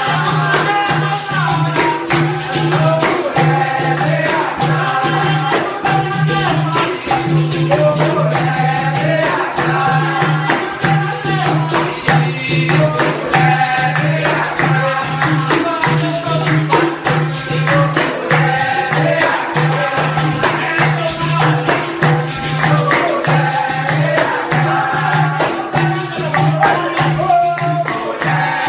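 Capoeira roda music: berimbaus and pandeiros playing a steady, driving rhythm, with jingling pandeiro beats and a low note pulsing steadily underneath. Voices sing over it.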